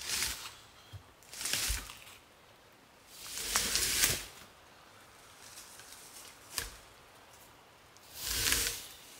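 A partly peeled log being dragged by hand over the forest floor, scraping through leaves and dirt in several short bursts with pauses between. The longest scrape comes a few seconds in, and there is a single sharp knock in the middle.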